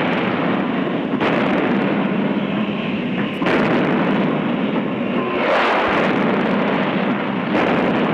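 Twin-barrelled naval gun firing repeatedly, a shot about every two seconds over a dense, continuous roar.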